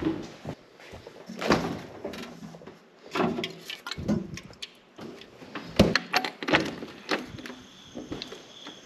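A series of knocks and clicks as doors are handled: a refrigerator door opened and shut, then a lever door handle and latch worked. Near the end a steady high insect chirping sets in as the door to the outside opens.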